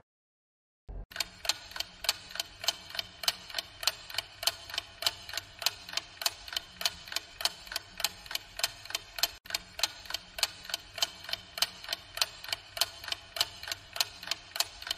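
Clock-ticking countdown sound effect: fast, evenly spaced ticks that start about a second in, after a brief silence.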